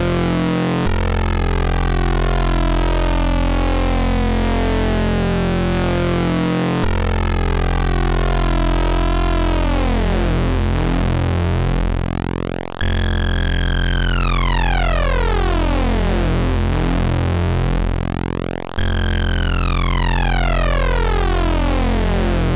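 Eurorack modular synthesizer patch of Rossum Trident oscillators waveshaped through a Klavis Mixwitch, playing a dense buzzing drone over a steady bass. Its overtones sweep downward and the sweep restarts about every six seconds. The last two sweeps are thinner, with fewer, clearer overtones.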